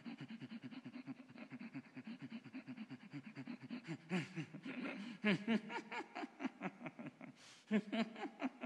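A man laughing low in rapid, even 'ha-ha-ha' pulses, a qigong inner-laughing vibration. It swells into a few louder bursts of laughter about halfway through and again near the end.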